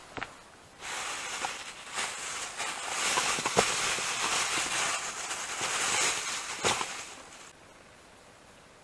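A thin plastic bag rustling and crinkling as a caught fish is put into it, with a few sharper crackles, starting about a second in and stopping abruptly near the end.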